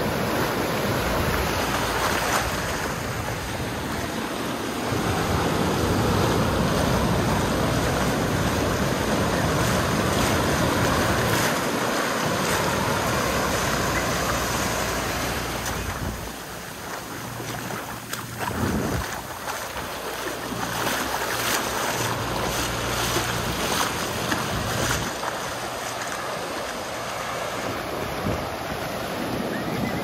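Ocean surf washing onto a beach, with wind buffeting the microphone; the wash eases for a few seconds about halfway through, then builds again.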